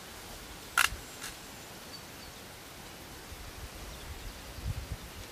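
Steady outdoor background hiss with a sharp click about a second in and a fainter click just after it; a few low bumps near the end.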